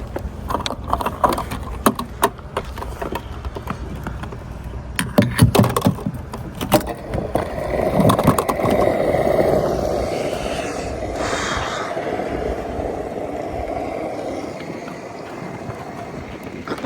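Clicks and knocks of fuel-filler and pump-nozzle handling, then from about seven seconds in a steady rush of petrol pouring from the pump nozzle into the car's tank.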